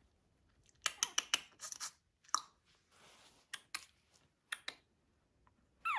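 Shih Tzu puppy moving on crinkly paper bedding: a run of sharp crackles and clicks from about a second in, then scattered clicks. Right at the end it starts a high whine that falls in pitch.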